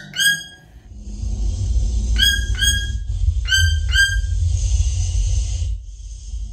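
Toucan giving short, sharp calls: one near the start, then two quick pairs, over a low rumble.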